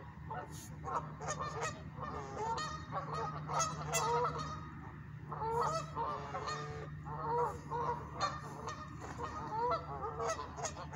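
Geese honking, many short calls repeated and overlapping throughout, over a low steady hum.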